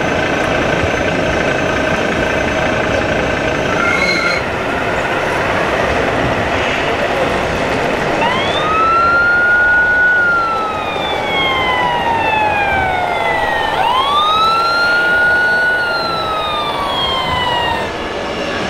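Wailing siren of an RC model emergency vehicle: from about eight seconds in it rises and then slowly falls, twice, the second wail fading near the end. Before it, a steady noisy background din with a few held tones.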